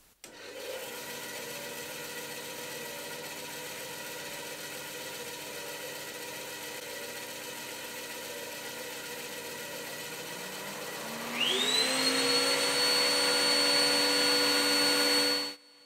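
Metabo BAS 261 Precision bandsaw running steadily on its first start-up. About eleven seconds in, a second, louder motor spins up with a rising whine and runs alongside it; both stop abruptly near the end.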